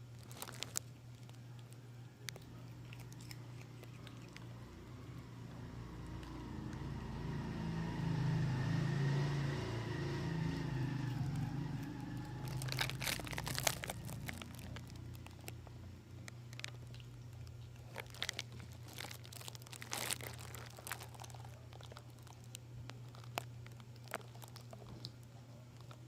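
A kitten chewing and biting vegetable peels: clusters of crunching and crinkling clicks, the busiest about halfway through and again later on. A steady low hum runs underneath, and a louder swell of sound rises and falls in the first half.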